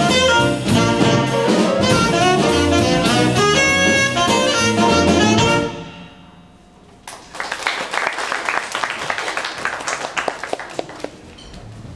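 Jazz combo with saxophone, piano and drum kit playing, then the tune ends about six seconds in. After a second of quiet, a small audience claps for about four seconds and the applause fades out.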